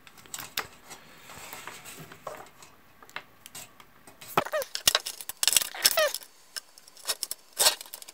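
Cables and plugs handled over a metal tin: irregular clicks, light rattling and cord rubbing as a microphone's jack is plugged into a small USB audio adapter, with two short squeaks in the middle.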